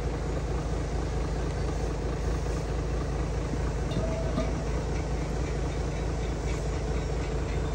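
A heavy engine running steadily at idle, a constant low drone. A few faint metallic clinks come about four seconds in.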